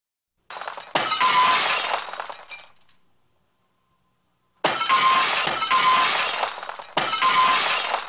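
Cartoon crash sound effects: three crashes of breaking glass, each a sudden loud hit followed by a clattering, clinking tail that dies away over a second or two. The second and third come close together, the third cutting in just as the second fades.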